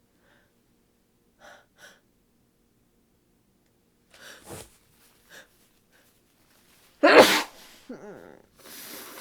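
A woman with a head cold sneezing once, loud and sudden, about seven seconds in, after a few faint breaths. A short falling voiced sound and a breathy exhale follow the sneeze.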